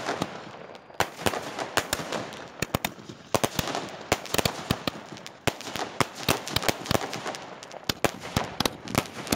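Firecrackers bursting in a rapid, irregular run of sharp bangs, several a second, going on without a break.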